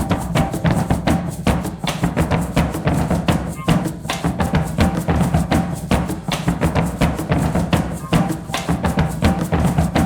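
Music with a busy, steady percussion beat of drums and sharp clicking strikes.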